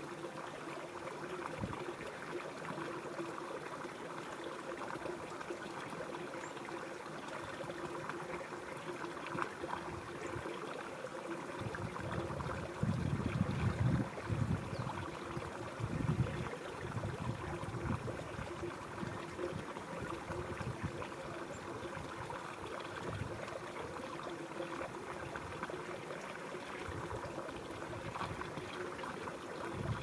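Shallow river water running steadily over its bed, with some low-pitched noise coming and going about halfway through.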